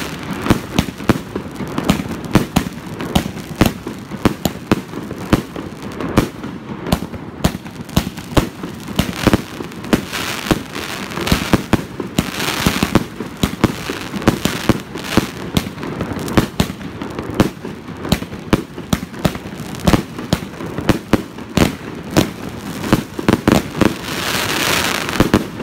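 Fireworks going off in a rapid string: sharp pops and bangs several times a second as shots launch and burst, with stretches of hissing about halfway through and near the end.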